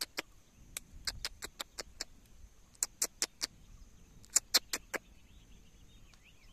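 A series of sharp, very short clicks in irregular clusters over the first five seconds or so, with a faint steady high-pitched drone underneath.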